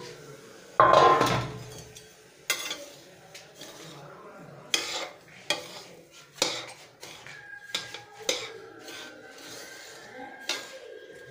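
Dry semolina tipped into a steel pan with a loud rushing clatter about a second in, then a metal spoon stirring and scraping it, knocking against the pan every second or two as the semolina is dry-roasted.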